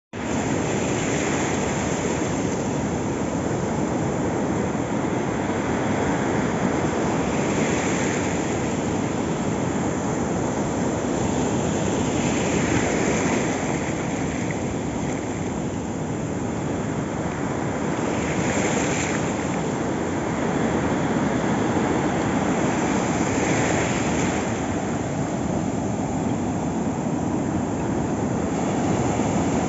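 Ocean surf washing in over a flat sandy beach: a steady rush of waves, with the hiss of a wash swelling every five or six seconds.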